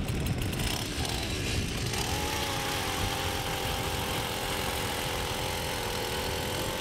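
Gas-powered ice auger's small engine revving up about a second in, then running steady at high speed as the auger bores into the ice.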